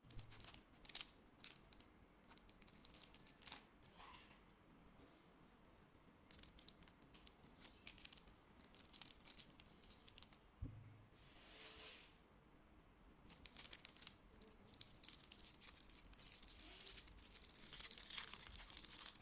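Chocolate and wafer-biscuit wrappers being torn open and crinkled: scattered crackles, then a denser stretch of crinkling near the end.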